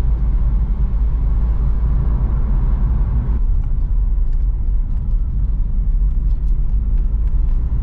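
Car driving, heard from inside the cabin: a steady low road-and-engine rumble with tyre hiss above it. The hiss eases slightly about three seconds in.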